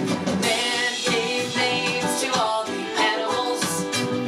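A song with strummed acoustic guitar accompaniment and a singing voice, playing steadily without a break.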